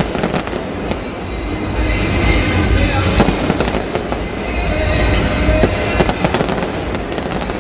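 Fireworks display: aerial shells bursting in quick succession with dense popping and crackling, in several clusters of rapid bangs.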